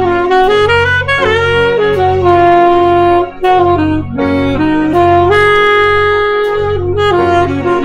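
Saxophone playing a melodic phrase of held and moving notes over a sustained E-flat major chord backing, sounding out the major seventh of the chord.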